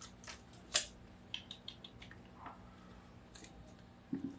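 Spring-loaded desoldering pump being handled, its plunger seal split: one sharp snap about three-quarters of a second in, then a few light clicks and taps.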